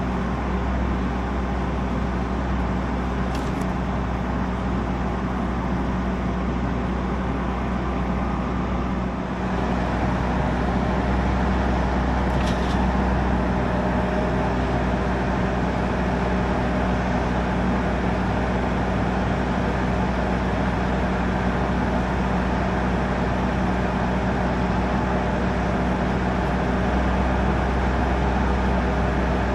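Stihl MS661 chainsaw running steadily at high revs in a Logosol chainsaw mill, ripping a maple log into lumber; it gets louder and harsher about nine seconds in.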